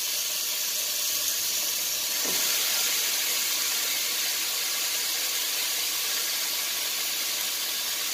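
Marinated pork chops sizzling with a steady hiss in a hot dry pan with no oil. A second chop goes into the pan about two seconds in.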